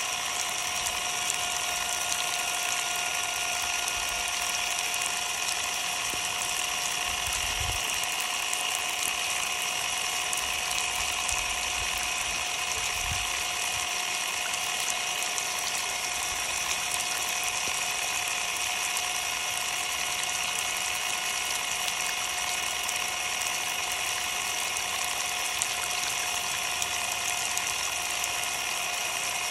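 Ryobi cordless impact driver running continuously with a steady whine and a mechanical rattle, under a heavy spray of water hissing over it. Its battery board is exposed, and the tool keeps running through the soaking.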